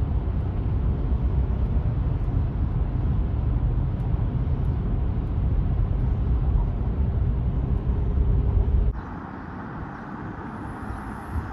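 Vehicle driving noise: a steady, loud, low rumble of a car on the move. About nine seconds in it cuts off suddenly, giving way to a quieter, higher hiss.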